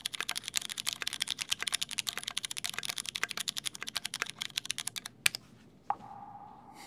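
Fast typing on a custom mechanical keyboard with Cherry MX White switches and a stainless-steel bottom case: a dense stream of clacky keystrokes that stops about five seconds in with one louder clack. This is the typing test before the rebuild, and the owner finds the keyboard in poor shape. A short rising swoosh and a brief tone follow near the end.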